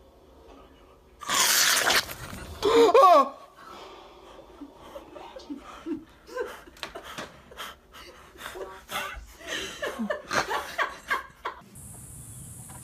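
A short loud hiss from an aerosol cream can about a second in, then a startled cry and several seconds of laughter.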